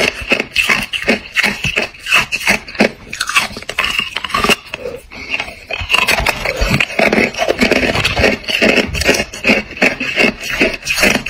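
Close-up crunching of hard clear ice being bitten and chewed: a fast, uneven run of sharp cracks and crackles that is loudest in the second half.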